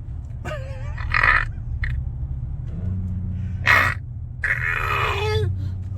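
A person's deep, burp-like hiccups mixed with laughing: three short voice sounds a second or two apart, one of them a sharp gulp near the middle. Beneath them runs the low steady drone of a truck's engine heard from inside the cab.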